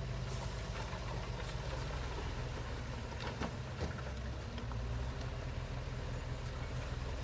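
Heavy diesel engine of earthmoving machinery running steadily at low revs, with two short metallic knocks about halfway through.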